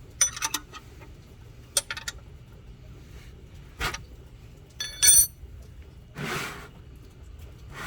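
Metal hand tools clinking and ringing in a few separate sharp taps, loudest about five seconds in, as the 14 mm oil drain plug is worked loose, followed by a short scraping rasp.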